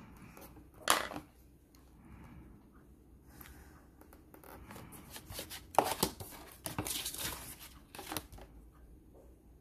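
A plastic set square and ruler being shifted and set down on drawing paper, with pencil handling. A sharp knock comes about a second in, and a cluster of knocks and scrapes follows between about six and eight seconds, with soft rustling in between.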